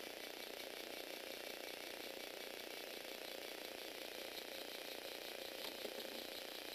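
Motor-driven Lego Technic plastic gear train running steadily, the gear teeth meshing in a fast, even ticking whir, with one slightly sharper click near the end.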